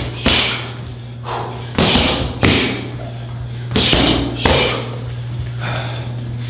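Kickboxing strikes, most likely low kicks, landing in sharp smacks. There are about five hard ones, mostly in pairs about half a second apart, with a steady low hum underneath.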